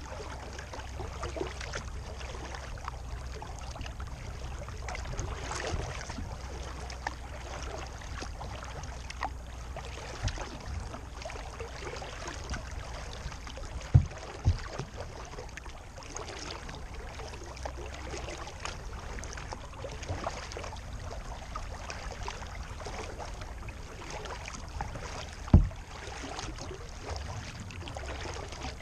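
Lake water lapping and splashing against a plastic kayak hull as it moves across choppy water, over a low steady rumble. A few sharp knocks stand out, two close together about halfway through and a louder one near the end.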